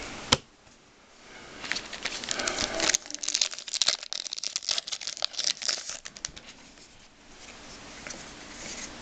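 A trading-card pack wrapper crinkling and tearing as a hockey card pack is opened and handled, with dense crackling in the middle. There are two sharp taps, one just after the start and one about three seconds in.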